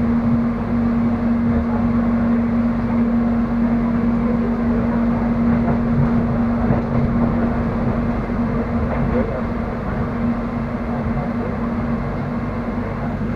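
Running noise heard inside the cabin of the Soekarno-Hatta airport electric train as it rolls along the track: a steady rumble with a strong, unchanging hum underneath.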